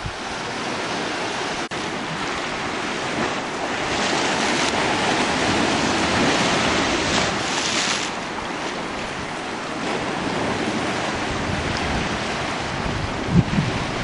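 Sea surf washing and breaking over boulders on a rocky shore: a continuous rush that swells to its loudest around the middle. A few low gusts of wind hit the microphone near the end.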